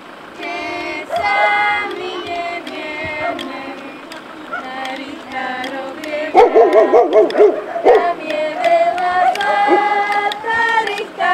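Group of women and children singing a folk song together as they walk, louder and fuller from about six seconds in, with voices calling before that.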